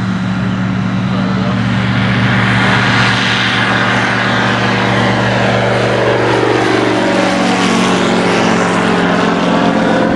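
Just Aircraft SuperSTOL light aircraft taking off at full power, engine and propeller loud as it climbs out and passes overhead. Its pitch drops as it goes over and away.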